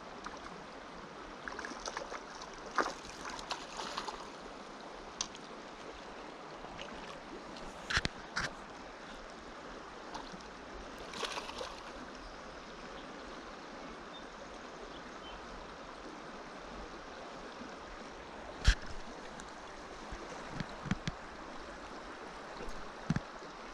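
Shallow river flowing steadily, with a few short splashes and knocks as a large brown trout is netted and handled in the water; the sharpest knock comes about three quarters of the way in.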